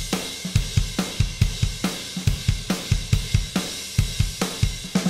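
Intro theme music: a fast, steady drum-kit beat of kick drum, snare and cymbals.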